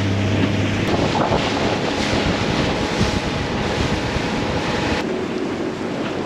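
Heavy wind buffeting the microphone and water rushing and spraying in the wake of a fast-moving inflatable dinghy, drowning the motor. The motor's steady hum is heard only for about the first second, and the rush falls to a quieter, steadier noise about five seconds in.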